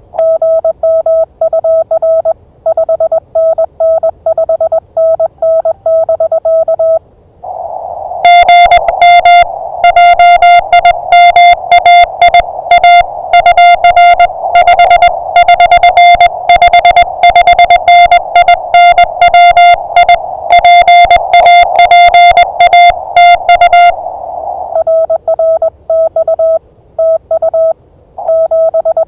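Morse code (CW) from an amateur radio transceiver, sent as on-off keyed tones. For about the first seven seconds and again near the end it is a clean, steady-pitched tone, like the radio's sidetone. From about eight seconds in, a louder, harsher keyed tone at a slightly higher pitch runs for some sixteen seconds over a band of receiver hiss, as when another station's signal comes through the receiver.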